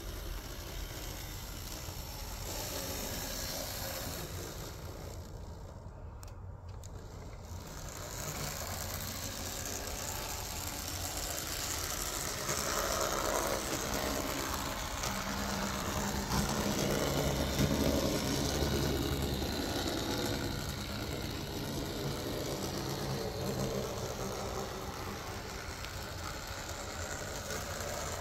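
Märklin Z-scale Class 194 electric locomotive model (88225) running on the track, its tiny motor and gearing whirring steadily with the wheels rolling on the rails. It grows louder in the middle and then eases off.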